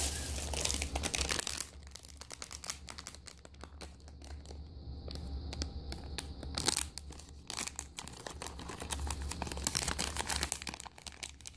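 A Puppy in My Pocket blind bag crinkling as it is handled and torn open by hand. It is loudest in the first second or two, then quieter crinkling with a few sharper crackles later on.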